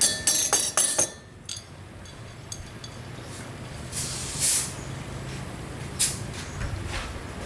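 Several sharp metal clinks with brief ringing in the first second, then a low steady hum broken by two short hissing bursts, about four and six seconds in.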